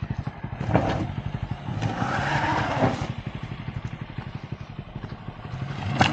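Honda Amaze sedan driving slowly over a rough, stony dirt track: its engine running with tyres crunching on loose rock, the sound swelling a few times as it climbs.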